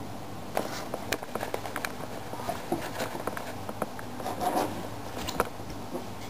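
A Border Collie puppy's paws and claws scrabbling and scratching on a fabric floor cushion and wooden floor, giving many short, irregular clicks and scrapes.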